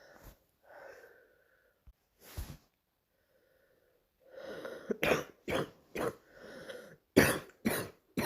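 A girl coughing in the morning: a few faint coughs and breaths at first, then from about four seconds in a run of about six loud, barking coughs in two quick clusters, with breaths drawn between them.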